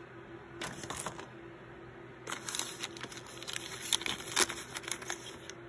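Foil-lined plastic blind-bag toy pouch crinkling as it is handled and rummaged by hand: a short rustle about a second in, then a longer run of crackles with a couple of sharper snaps near the end.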